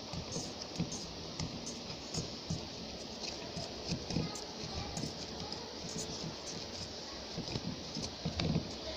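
Soft, irregular thumps and handling noise from hands rolling and pressing balls of roti dough on a metal tray, over a steady hiss.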